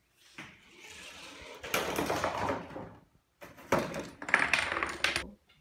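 A homemade chain-reaction machine running: a ball rolling down a plastic ramp and toy cars, cardboard cereal boxes and wooden blocks knocking into each other and toppling, in two spells of rattling and clattering with sharp knocks.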